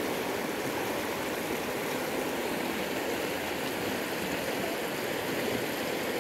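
North Fork of the Flathead River running fast and shallow over a rocky bed: a steady rush of flowing water.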